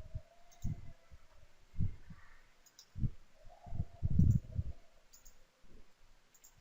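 Scattered computer mouse clicks, with a few soft low thumps between them, the loudest about four seconds in.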